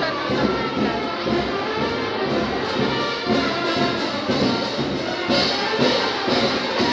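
Brass band music with trumpets over a steady, regular drum beat.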